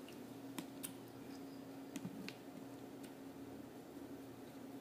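Faint scattered clicks and small handling noises as sushi is picked up by hand from a plastic tray, over a low steady hum.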